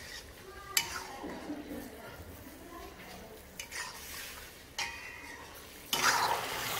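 A metal spatula stirring in an iron karahi, with a few sharp clinks against the pan. Near the end a louder steady hiss starts: the chicken and tomato curry sizzling in the pan.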